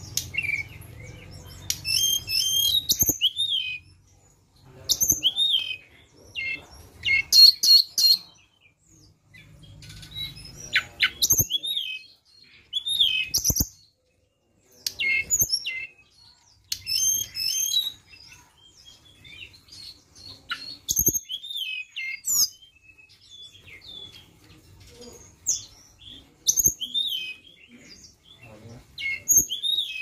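Blue flycatcher (tledekan) singing: short bursts of quick, high whistled notes with rising and falling slurs, repeated every second or two with brief pauses between.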